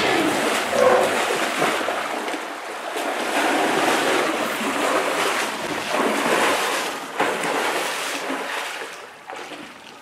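Muddy water sloshing and splashing as an African elephant heaves itself up out of a mud wallow and wades through a waterhole. It dies away near the end.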